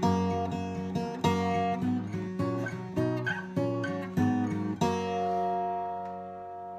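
1960s Terada FW-320 acoustic dreadnought guitar, a Japanese-built copy of a Gibson Hummingbird, played in a run of picked notes and chords. About five seconds in, a last chord is struck and left to ring and fade.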